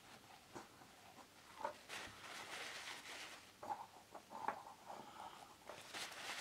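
Kitchen paper rustling and crinkling as it is pushed and pressed into a small metal can stove, with a few light taps and knocks. Faint throughout.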